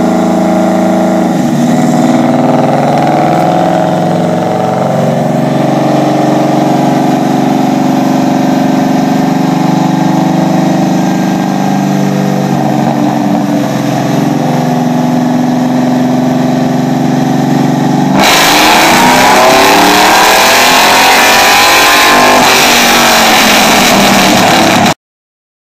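A 2009 GMC Sierra's 5.3-litre V8, breathing through long-tube headers and a 4-inch Gibson Metal Mulisha exhaust, running under load on a chassis dyno. It holds steady at part throttle for most of the time, then about three quarters of the way through goes to full throttle, louder, with the revs climbing, and ends abruptly.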